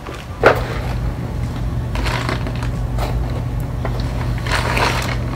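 Plastic packaging around a hair bundle crinkling as it is handled, in a few rustles with the loudest about half a second in, over a steady low hum.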